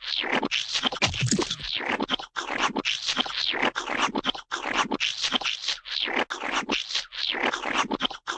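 Paint-squirt sound effects: a rapid, uneven string of short, hissy squirts following one another with only brief gaps.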